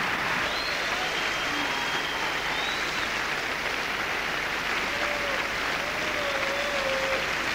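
Concert audience applauding steadily, a dense continuous clapping.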